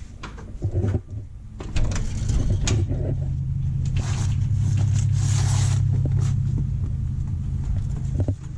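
An engine running steadily, with clicks and rattles over it.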